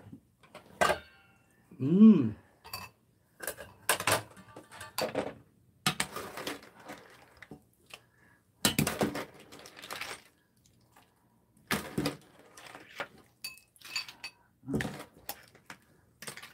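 Ladle scooping soup out of a stainless steel pot into ceramic bowls, with irregular clinks and knocks against the pot and the bowl rims.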